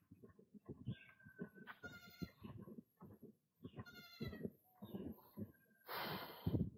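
A goat bleating twice, about two and four seconds in, over a run of short knocks like footsteps. Near the end a brief rush of noise is the loudest sound.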